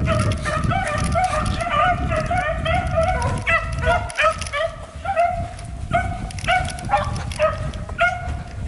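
Pack of beagles baying, with many short, overlapping, repeated calls from several dogs at once. The pack is in full cry on a rabbit's scent.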